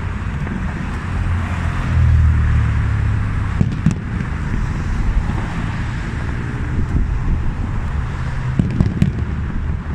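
Fireworks display: a steady rumbling hiss with a few sharp cracks, about four seconds in and again near the end.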